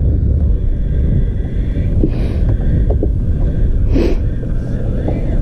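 Wind buffeting the microphone: a steady low rumble, with two brief hissing swells about two and four seconds in.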